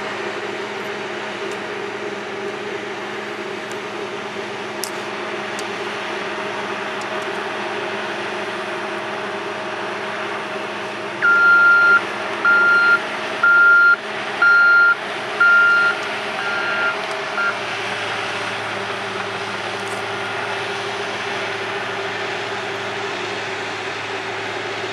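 Heavy earthmoving machine's engine running steadily while it compacts clay. About halfway through, its reversing alarm beeps about six times, each beep roughly half a second long.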